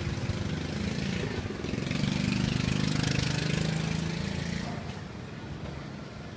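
A small motorbike engine running close by, getting louder about two seconds in, then fading away after about four and a half seconds.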